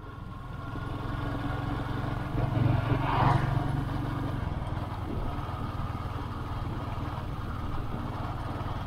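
Royal Enfield Hunter 350's single-cylinder engine running as the motorcycle rides along the road. The sound fades in at the start and gets louder for a moment about three seconds in.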